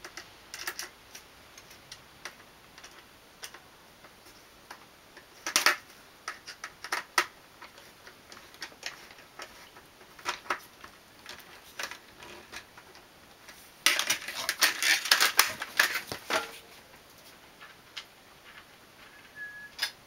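Metal mounting frame of a window air conditioner being handled, with scattered clicks and taps. Near the middle comes a couple of seconds of dense rattling clatter as the frame is shifted.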